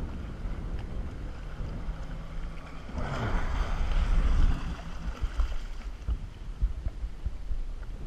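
Jet ski engine running under throttle with water rushing along the hull and wind on the microphone; about three seconds in it grows louder for a second or so as the craft carves a turn through spray, then eases back to a steady run.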